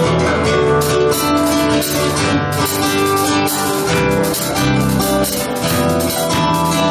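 Live worship music from a church band, led by a rhythmically strummed acoustic guitar over held chords.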